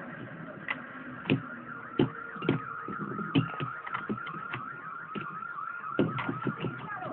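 Two Beyblade spinning tops battling in a plastic stadium: a high whirring tone that wobbles up and down several times a second as they circle, broken by sharp clacks each time the tops strike each other.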